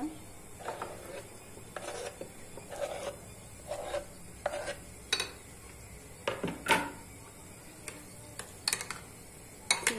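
A metal spoon scraping chopped cooked eggplant off a wooden cutting board into a glass bowl of yogurt sauce, then stirring it in. Irregular scrapes and clinks against wood and glass, the loudest about two-thirds of the way through.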